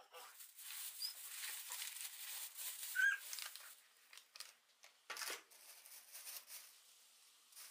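Thin plastic bag liner rustling and crinkling as hands lift leafy vegetables out of it, with a short squeak about three seconds in and a few more brief rustles a couple of seconds later.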